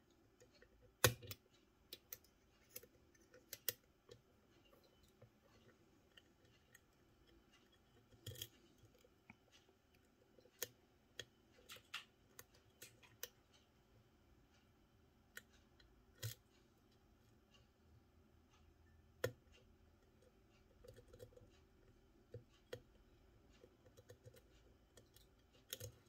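Faint, irregular metallic clicks and ticks of lock picks working the pins and sliders inside an M&C Matrix lock, the sharpest click about a second in.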